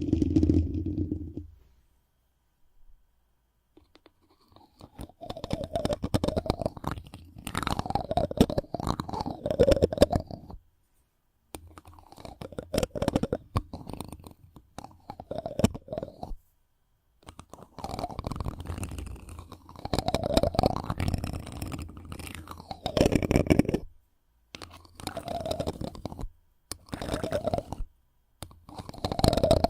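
Friction sounds made right on the microphone: crackly, scratchy rubbing with a deep rumble, in bursts of a few seconds separated by short silences.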